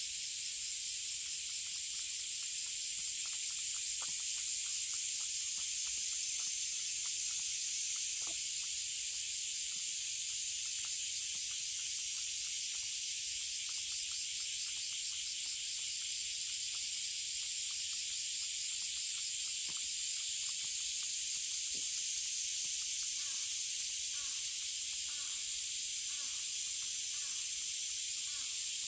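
Steady, high-pitched chorus of summer cicadas, a dense buzzing hiss with a fine pulsing texture, with faint scattered clicks beneath it.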